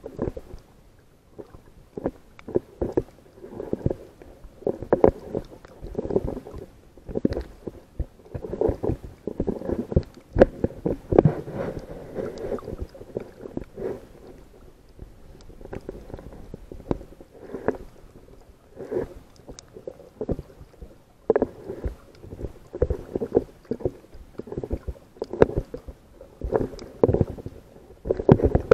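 Muffled water sloshing and gurgling in irregular surges, with short knocks in between.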